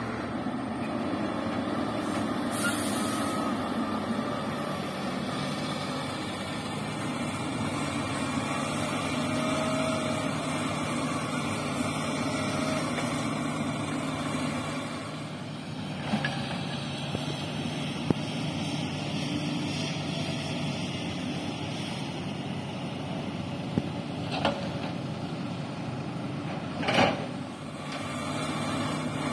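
Sumitomo SH350LHD hydraulic excavator's diesel engine running steadily as it works, with a brief hiss a couple of seconds in. Soil and bucket thud into the steel bed of a dump truck several times, the loudest knock near the end.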